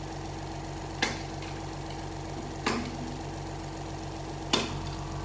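Three sharp metal clicks about a second and a half apart: small safety clips and pins being worked out of the planetary set of an automatic transmission with hand tools. A steady low hum runs underneath.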